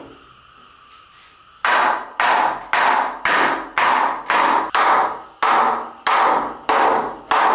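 Hammer blows on a wooden bed frame, about two a second, starting about two seconds in, each with a short ring.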